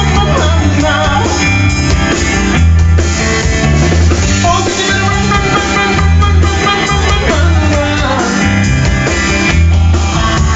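Rock band playing an instrumental passage: electric guitar over bass and drum kit, with a steady beat.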